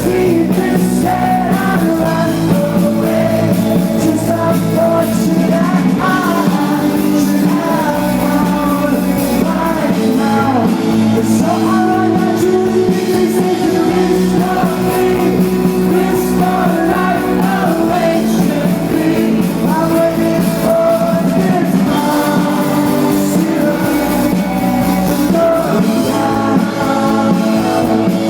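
Live rock band playing a song with a lead singer's voice over the band, loud and continuous.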